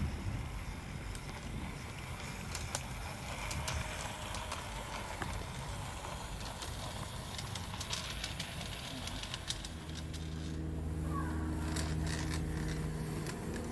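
LGB G-scale draisine model running along garden railway track, its small electric motor whirring and its wheels clicking sharply over the rail. About ten seconds in, a steady low hum sets in.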